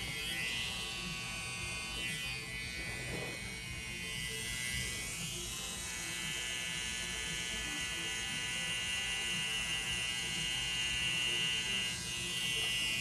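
Electric tattoo machine buzzing steadily while the needle works over shoulder skin.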